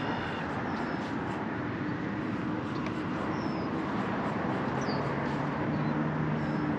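Wind buffeting the microphone over open marsh water, with a few short high bird chirps and a low steady hum that comes in about halfway through.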